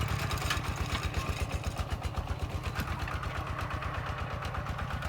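Bulldozer's diesel engine running steadily at low revs, with a rapid, even low chugging.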